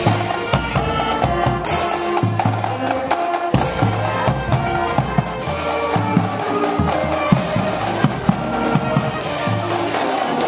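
High school marching band playing on the march: saxophones, clarinets and brass carry a tune over a steady beat of bass drums.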